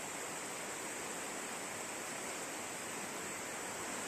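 Steady rushing of a mountain river swollen by days of rain, running in spate below the bank.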